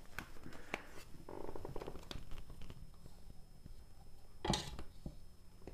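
Handling noise of a tablet being picked up and held: small clicks and taps, a short buzzy rattle, and one louder knock about four and a half seconds in.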